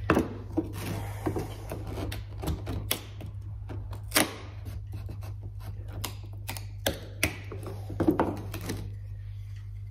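Loose wooden drawer guides and runners being handled on a wooden workbench: irregular taps, knocks and light scraping of wood on wood, with a louder knock about four seconds in and a few more knocks late on, over a steady low hum.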